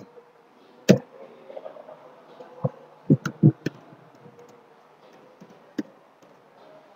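Computer keyboard keys tapped one at a time, separate clicks with pauses between them and a quick run of four a little past three seconds in, over a faint steady hum.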